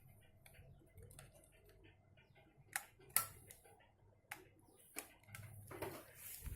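Faint, scattered light clicks and taps from objects being handled, with a couple of sharper clicks about three seconds in.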